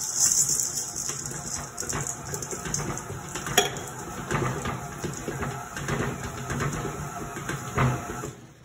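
Electric stand mixer running, its beater churning thick cookie dough and chocolate chips with small knocks and scrapes against the steel bowl; the motor is switched off near the end.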